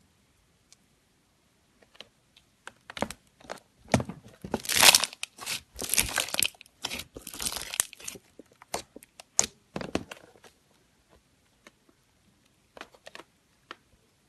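Clear slime being squeezed and stretched by hand, making a busy run of short crackles and pops that is densest in the middle, with a few scattered pops near the end.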